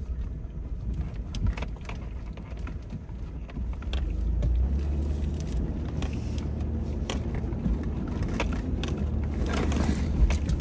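A vehicle driving on a rough unpaved track: a low engine and road rumble that gets louder about four seconds in, with frequent knocks and rattles from the bumps.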